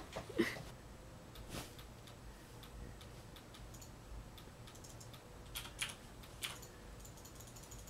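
Faint, scattered soft clicks and rustles of a Ragdoll kitten shifting about in a duvet: a couple near the start, one about a second and a half in, and a little cluster around six seconds in.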